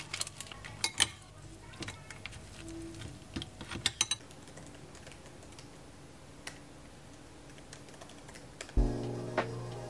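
Kacang pilus (small coated peanuts) and crackers tipped from a plastic bag into a ceramic bowl: scattered sharp clicks and taps over the first four seconds, then only a few faint ticks. Background music comes in near the end.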